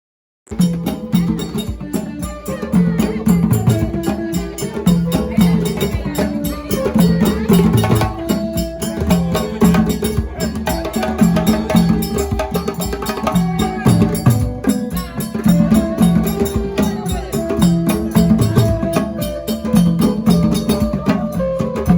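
Folk music driven by dense, rhythmic drumming and percussion, starting abruptly about half a second in.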